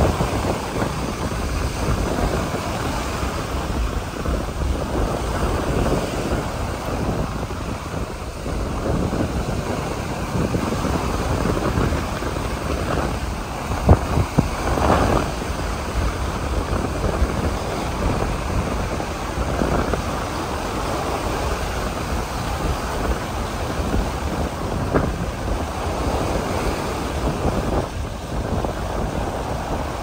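Wind rumbling on the microphone over the wash of ocean surf on a beach. A single sharp knock comes about halfway through.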